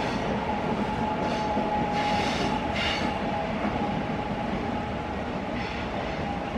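Electric train running past on the rails: a steady rumble with a thin, steady whine and a few short, high-pitched screeches.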